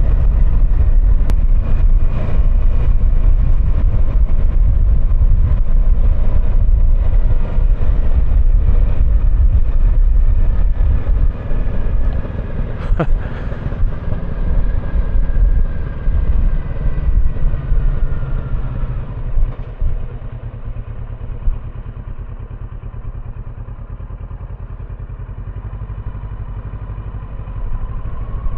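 Kawasaki Versys 650 parallel-twin engine running on the move. It is loud at first, eases off about a third of the way in and again past the middle, and picks up a little near the end. A single sharp click sounds about halfway through.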